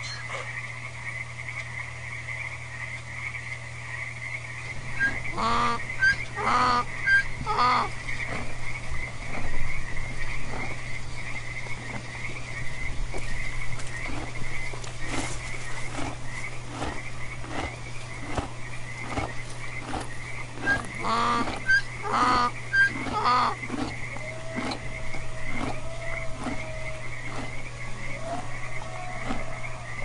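A frog chorus: a steady, fast-pulsing high trill throughout, with two runs of louder croaks repeated about every half second, about five seconds in and again about twenty-one seconds in.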